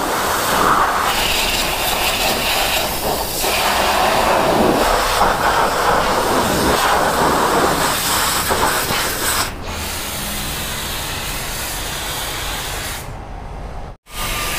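High-pressure washer jet spraying water onto a motorcycle, a steady loud hiss of spray splashing off the bike as it is rinsed after a diesel wash. The sound changes about two-thirds of the way through and cuts out briefly near the end.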